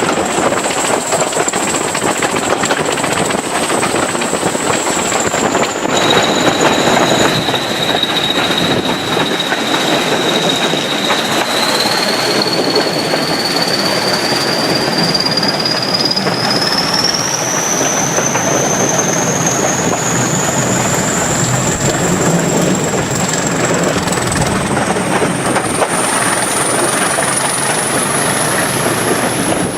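BR Class 20 diesel locomotive 20059 working under power, its English Electric engine running loud and steady. High thin whistling tones ride over it, one climbing slowly in pitch through most of the stretch.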